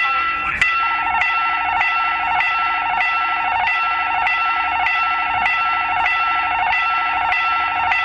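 Railway level-crossing warning bell ringing with an electronic ding repeated a little under twice a second, the signal that a train is approaching. About a second in, a second warning tone joins it, pulsing rapidly and steadily.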